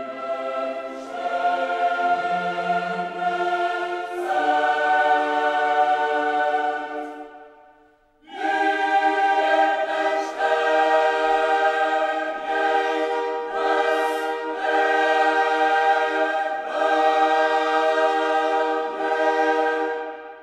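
Background music: a choir singing long held chords. The first phrase fades out about eight seconds in, and a new phrase starts right after.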